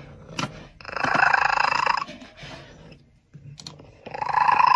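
Domestic cat making two harsh, drawn-out calls, each about a second long, with quieter rough sounds between them.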